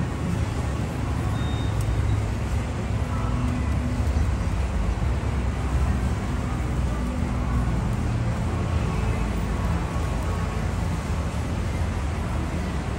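Steady low roar of gas flames from an infrared gas grill and a handheld blowtorch searing wagyu beef skewers.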